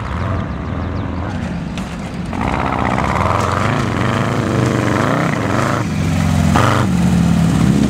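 Engine of a Volkswagen Beetle Baja Bug revving hard as it is driven over rough ground, its pitch rising and falling repeatedly and getting louder after about two seconds.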